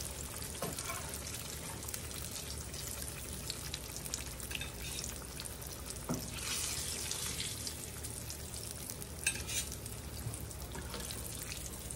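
Grease sizzling steadily in a skillet around flour-crusted hamburger steaks, with a few light clicks of a metal spatula as the steaks are lifted out.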